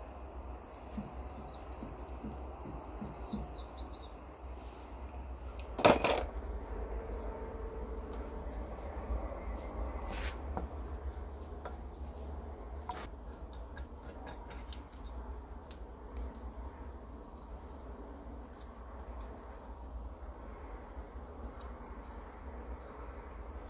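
Metal parts of a Hasag 351 L pressure petrol lamp clicking and clinking as they are handled and fitted to the tank, with one sharp knock about six seconds in and smaller clicks later. Faint bird chirping in the background.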